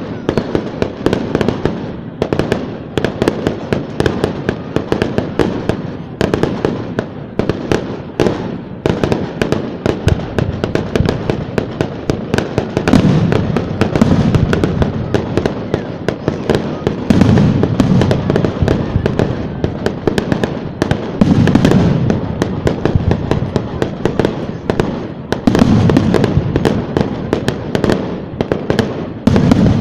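Fireworks display: a dense, continuous barrage of crackling and banging shell bursts, with heavier booms every few seconds.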